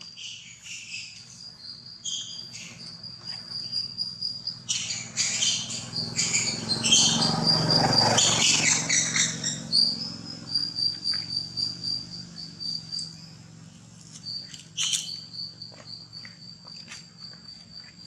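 Insects chirping in a steady, high, pulsing trill. In the middle stretch there is a louder burst of crackly noise.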